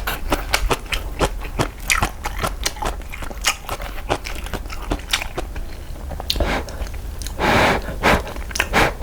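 Close-miked mouth sounds of a person eating instant cup ramen and kimchi: chewing with many quick wet clicks and crunches. Near the end there are two louder, noisier bursts.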